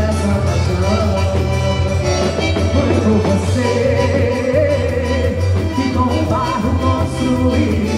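Loud music for a São João quadrilha dance, with a steady bass beat and a melodic line that may carry a sung voice.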